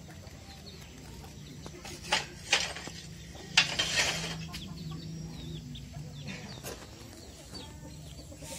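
Chickens clucking, with a few short, louder noises about two seconds in and again around three and a half to four seconds in.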